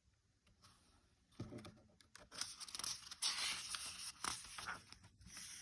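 Soft rustling and handling of paper, with small clicks: a picture book's page being turned.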